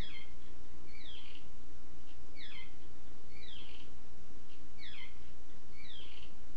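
A bird calling over and over: short falling chirps, often two notes close together, about once a second, over a steady low electrical hum.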